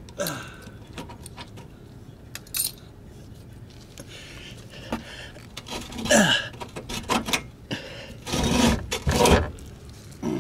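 A steel two-ball hitch ball mount being worked loose and slid out of a truck's receiver: scattered metal clicks and clinks, with louder clanking and scraping about six seconds in and again between eight and nine and a half seconds.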